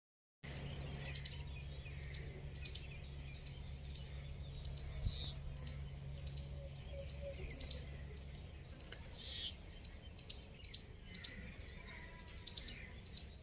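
Small birds chirping in trees, short high notes repeated about twice a second, over a low steady hum that fades about two-thirds of the way through.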